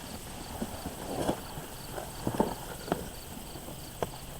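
Irregular knocks and scrapes of a digging tool working garden soil while potatoes are dug up. An insect chirps in a steady rhythm in the background.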